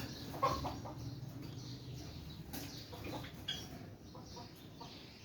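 Birds calling: a few short calls, the loudest about half a second in, with scattered quieter ones after it.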